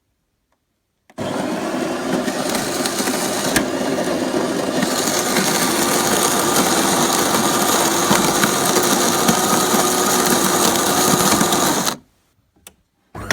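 Bean-to-cup espresso machine running, a loud steady mechanical whirr with a steady hum in it that starts about a second in and cuts off suddenly near the end, followed by a click.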